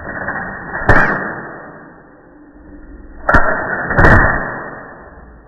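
Scoped AR-style rifle firing three loud shots: one about a second in, then two close together a little past the middle, each echoing and fading.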